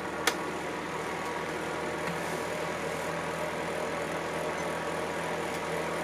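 Electric fan heater running: a steady fan whir with a motor hum, and a single short click just after the start.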